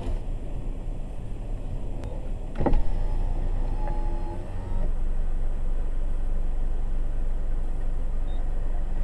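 Steady low rumble of a car idling and creeping forward, heard from inside the cabin. A single knock comes about a third of the way in, followed by a brief steady whine lasting about a second and a half.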